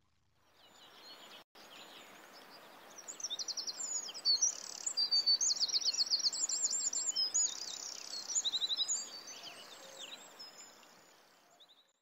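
Songbirds singing over a steady outdoor hiss: several overlapping quick trills and warbling phrases, fading near the end.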